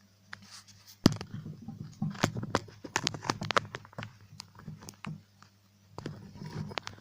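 Small hard clicks and taps of charm parts and chain being handled and fitted into a tiny glass jar, in irregular clusters with a short lull near the end.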